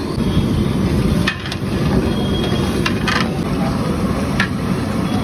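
A long-handled steel ladle stirring a large aluminium cooking pot, knocking and scraping against the metal several times, over a steady low rushing noise.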